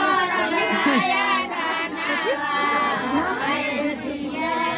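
Several voices at once: women singing traditional wedding songs (vivah geet) with long held notes, over crowd chatter.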